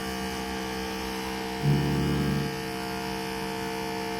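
Pressure washer running with a steady drone. About halfway through, a louder, lower-pitched drone comes in for just under a second.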